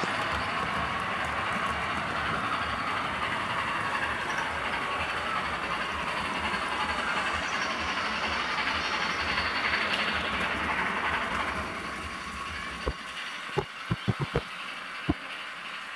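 Model train running on the layout track: a steady rolling rumble and hiss of wheels and motor. About twelve seconds in it gets quieter, and a few sharp clicks follow as the wheels cross rail joints and turnouts.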